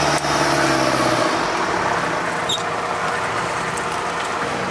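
Off-road 4x4 engine working hard with its wheels churning mud, heard from inside the cab of another vehicle. The engine tone drops away about a second in, leaving a steady rushing noise.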